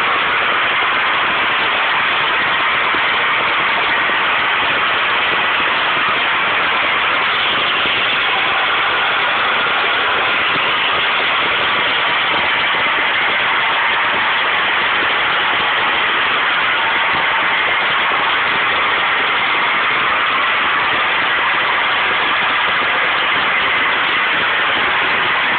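Uncontrolled gas well blowout: gas jetting from the well with a loud, steady hiss that does not change.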